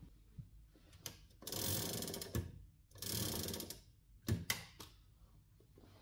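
Underwood Elliott-Fisher book typewriter being moved along its metal rails: two sliding runs of about a second each, with a few sharp clicks and knocks before and after.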